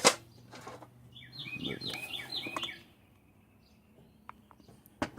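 A sharp knock, then a bird chirping a quick run of about six repeated high notes, and another short knock near the end.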